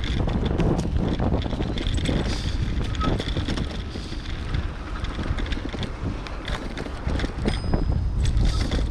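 Mountain bike riding along a dirt singletrack: tyres rolling over the trail with many small rattles and clicks from the bike, under a steady low rumble of wind on the microphone.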